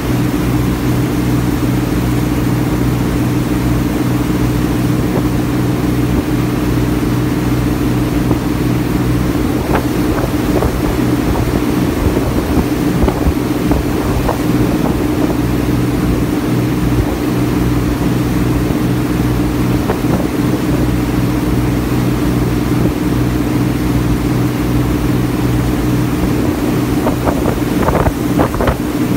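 Small passenger ferry's engine running steadily at cruising speed, a loud even drone heard from on board. A few brief crackles break through, most of them near the end.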